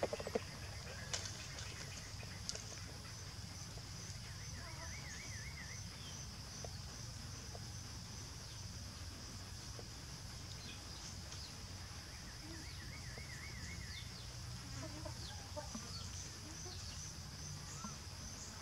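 Outdoor rural ambience: a steady high insect drone with two warbling bird trills and low clucking calls from chickens toward the end.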